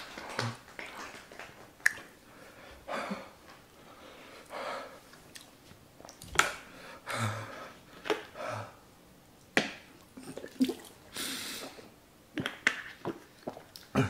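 A man's gasping, heavy breaths and sniffs as his mouth burns from extremely spicy fire noodles, with sharp lip smacks and a few short low groans.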